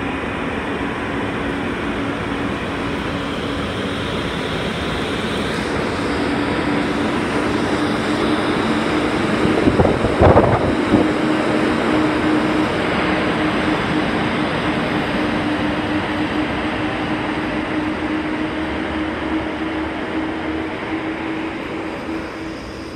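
Freight train of an ET22 electric locomotive and hopper wagons rolling past close by: a steady rumble and rush of wheels on rail under a steady low hum. About ten seconds in there is a short, louder burst of clatter.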